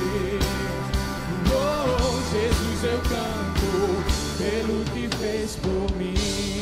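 Live worship band playing, with electric guitar and a male lead singer over a steady beat of about two hits a second.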